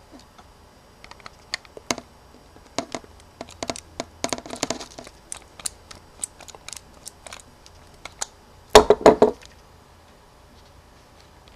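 Small, sharp clicks and taps of a tiny Phillips screwdriver working a screw in a compact camera's metal body as the camera is handled, with a denser run of clicks around four to five seconds in and a louder cluster of knocks about nine seconds in.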